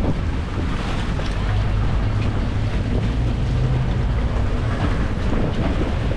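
A boat's motor running steadily with a low hum, with wind buffeting the microphone over it.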